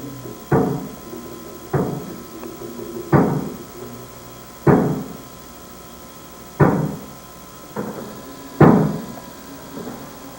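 A deep drum struck slowly, seven single beats spaced unevenly about one to two seconds apart, each ringing out briefly.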